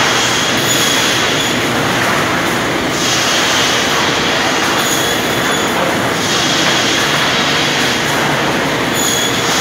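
Cursal TRSI 8000 AP automatic push-feed crosscut saw with a 700mm blade cutting boards to length: steady loud machine noise, with a high squealing whine that comes and goes a few times as the blade runs through the cuts.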